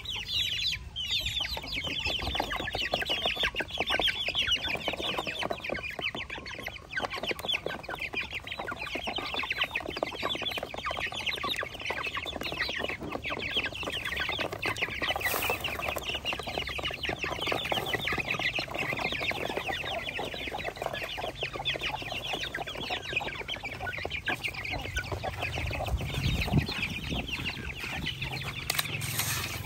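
A flock of young chickens and chicks peeping and cheeping continuously in a dense, high-pitched chorus as they feed on grain. There is a single low bump near the end.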